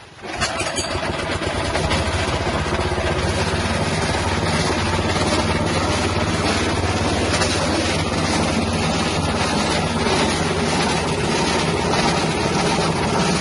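Small 6.5 hp engine starting up and driving a wet-spice grinding machine, coming up to a steady running speed within about a second and a half, then running on evenly.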